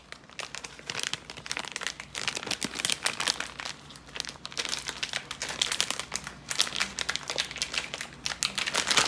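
Plastic snack bag crinkling and crackling as hands pull and work at it to get it open.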